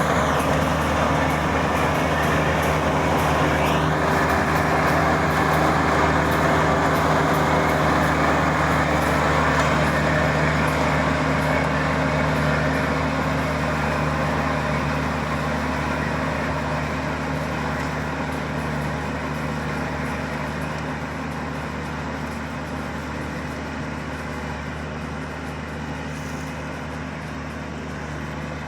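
Kubota DC-35 combine harvester running steadily, its engine hum steady under a broad clatter of threshing machinery, growing gradually quieter over the second half.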